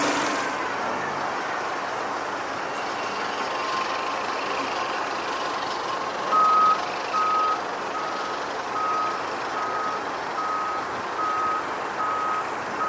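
Aircraft tow tractor's reversing alarm beeping at one pitch about twice a second, starting about halfway in, over steady background noise.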